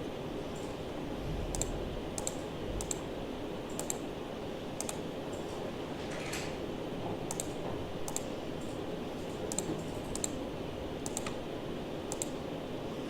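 Computer mouse and keyboard clicks, one or two at a time at irregular intervals, over a steady low hum.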